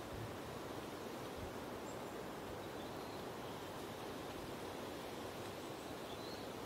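Steady outdoor background rush with no single clear source, and a few faint, brief high chirps.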